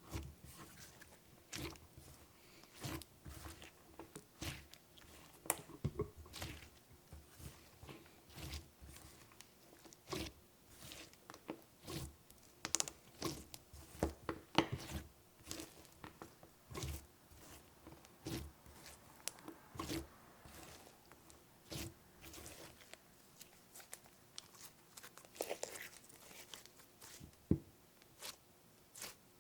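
Hands kneading and stretching clear slime mixed with eyeshadow, giving irregular wet, sticky clicks and pops, several a second.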